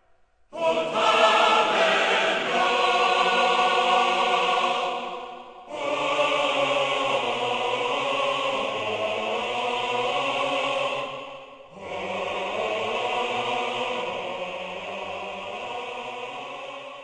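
Choral music: three long held chords, each about five seconds, with brief dips between them.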